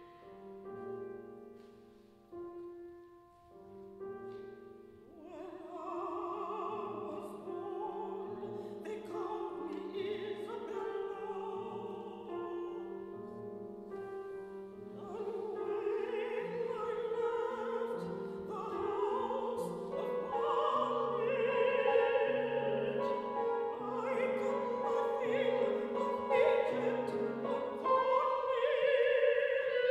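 Classical soprano singing with vibrato over a small chamber ensemble led by piano. The ensemble plays a repeated low bass figure. The voice enters about five seconds in and grows louder toward the end.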